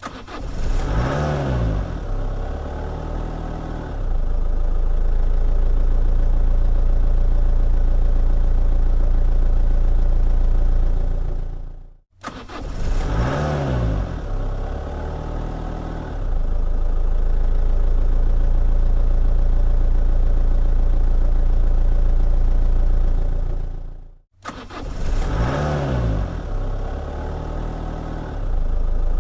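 Car engine starting, played three times over: each time the revs flare up and drop back within the first couple of seconds, then the engine runs steadily and louder from about four seconds in. It fades and cuts off after about twelve seconds before starting again.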